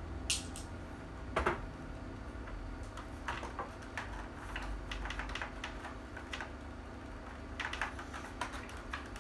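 Irregular plastic clicks and knocks as the parts of a replica pulse rifle are handled and fitted, with a louder knock about a second and a half in and a quick run of clicks near the end, over a low steady hum.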